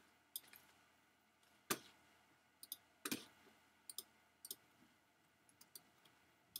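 Computer mouse clicking as the 3D view is navigated: faint, irregular clicks, several in quick pairs, with two louder clicks about two and three seconds in.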